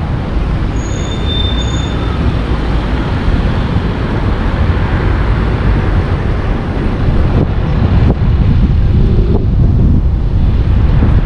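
A car driving slowly through town streets: a low rumble of road noise and wind buffeting the microphone, a little louder and duller from about seven seconds in as the car picks up speed.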